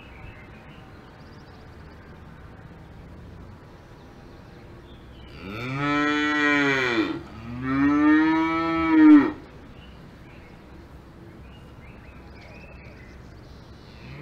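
A cow mooing twice in a row about halfway through, each long moo rising and then falling in pitch. Otherwise there is only a low, steady background.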